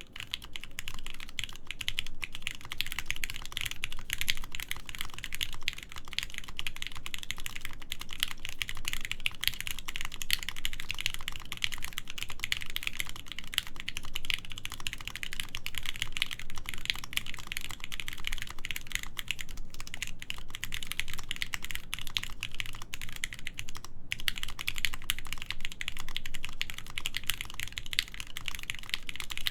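Fast, continuous typing on a DD-40 mechanical keyboard with lubed Gateron Mizu switches, full aluminium plate and PBT keycaps: a dense stream of key clicks and bottom-outs, with a brief pause about 24 seconds in.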